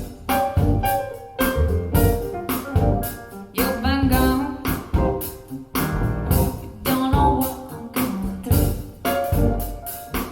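Music played through PSB Alpha P5 bookshelf speakers and picked up by a microphone in the room: a sung melody over keyboard and a steady beat.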